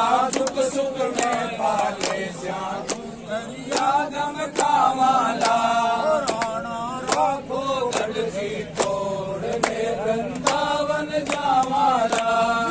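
A group of men singing a Hindu devotional chant together, keeping time with hand claps about twice a second.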